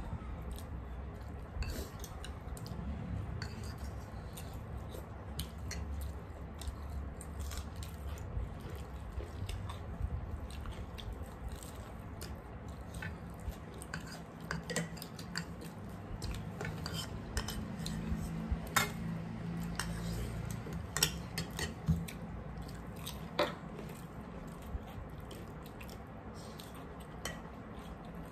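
Steel spoons clinking and scraping against porcelain bowls while eating, with scattered sharp clicks. The loudest come in a cluster in the second half.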